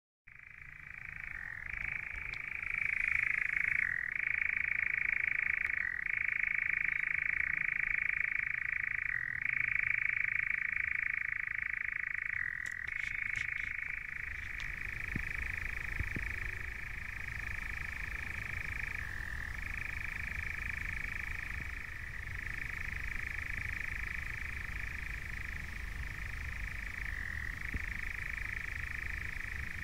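Male European nightjar churring: one long, monotonous dry trill that shifts pitch every few seconds, with a low rumble underneath.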